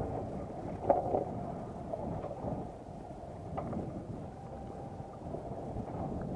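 Steady wind and water noise around a small fishing boat at sea, rumbling on the microphone. A sharp click comes about a second in and a few faint clicks follow, as tackle is handled with metal pliers.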